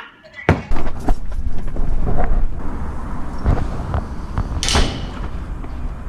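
A sharp knock about half a second in, then wind rumbling on the microphone, with knocks and a brief scraping clatter as a large metal-framed wooden gate is opened.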